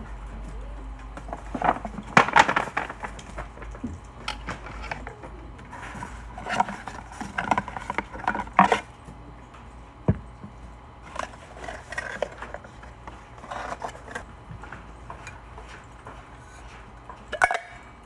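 Objects being handled at close range: rustling with a scattered series of clacks and knocks, loudest a couple of seconds in and again about halfway through, over a steady low hum.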